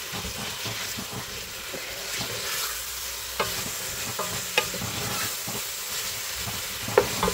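Minced meat and fried onion sizzling in a metal pot while being stirred and scraped with a wooden spatula. The spatula knocks sharply against the pot a few times. The keema is being browned (bhuna) before water goes in.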